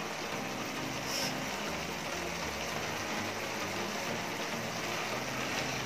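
Okra, tomato and onion masala simmering in a frying pan, a steady sizzling hiss.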